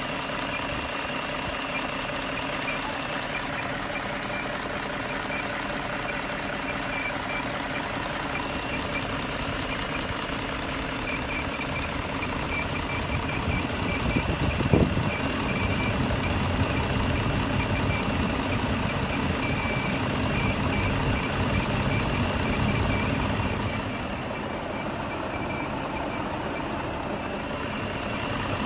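BMW M62B44TU 4.4-litre V8 running, with a fast, even ticking at a fixed high pitch over it, the strange noise under investigation. A single sharp click comes about halfway through, after which the engine sound is louder and deeper for about ten seconds before settling back.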